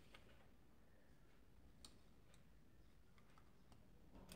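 Near silence, with a few faint, scattered clicks as a circuit board is handled and a soldering iron is brought to it.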